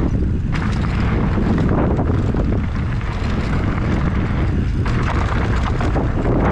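Mountain bike riding down a dusty trail: heavy wind buffeting on the microphone over the steady rumble of the tyres on loose dirt.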